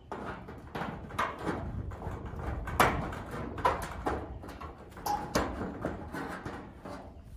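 Hand tools working on corrugated iron sheeting: irregular metallic clicks, knocks and scraping, with a sharp knock about 3 seconds in and another a couple of seconds later.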